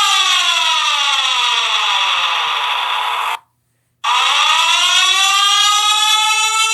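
Wildfire warning siren sounding a buzzy tone that slides down in pitch for about three seconds, cuts out completely for about half a second, then winds back up and holds steady.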